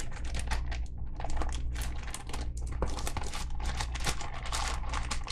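Packaging crinkling and rustling as it is handled and opened, a quick irregular run of crackles over a steady low hum.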